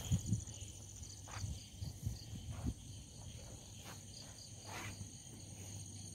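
Crickets chirping steadily in high, pulsing trills, with a few soft low thumps in the first three seconds.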